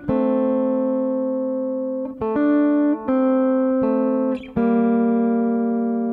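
Background music: a guitar-like plucked-string instrument playing slow, held chords that change about every second, with short breaks between them.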